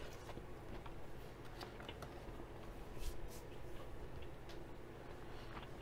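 Faint chewing of a mouthful of kabob and rice: scattered small clicks and mouth smacks over a steady low hum, with one louder click about three seconds in.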